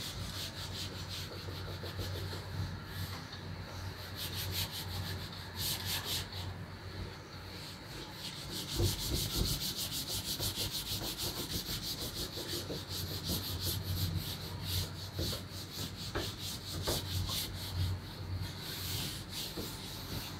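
A cloth being rubbed back and forth over a chalkboard, wiping off chalk writing: quick repeated scrubbing strokes, densest in the middle stretch.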